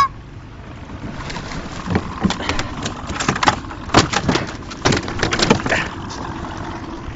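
Irregular knocks, bumps and splashing in and around a small boat, loudest about four and five seconds in.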